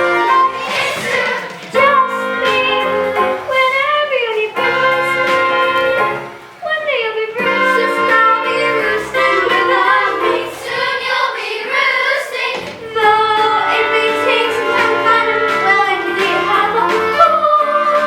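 A musical number: voices singing over instrumental accompaniment.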